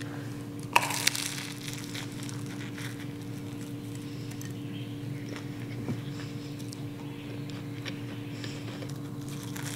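A bite into a flaky puff-pastry sausage roll about a second in, the pastry crackling and crunching, followed by faint crunches of chewing. A steady low hum runs underneath.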